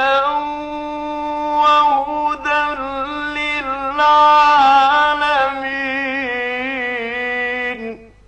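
A man's voice reciting the Quran in the melodic mujawwad style, drawing out one long ornamented phrase with wavering, rising and falling pitch. The voice breaks off a little before the end.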